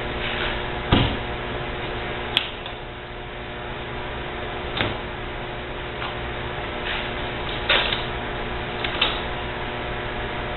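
Scattered clicks and knocks, about five in all, from tools and dishwasher parts being handled during disassembly, over a steady hum.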